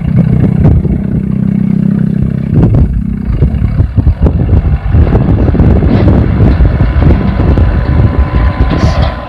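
Light-duty diesel dump truck's engine running loudly as the truck pulls up, then driving the hydraulics that raise its tipping bed to dump a load of soil.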